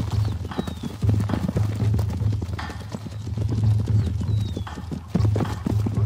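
Zebra hooves galloping and pounding on dry ground as a group of stallions runs and scuffles, with a few short high calls over the drumming.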